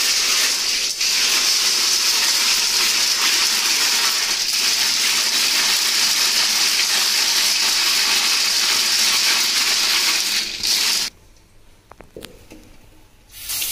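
Hands scrubbing wet snails in a metal basin: the shells clatter and grate against each other and the metal in a steady, noisy rush. It stops suddenly about eleven seconds in and starts again near the end.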